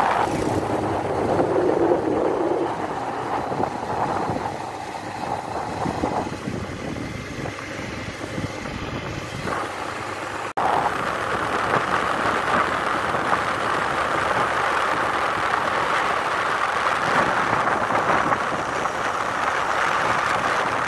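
Motorcycle riding along at road speed: steady engine and road noise, with a brief dropout about ten and a half seconds in.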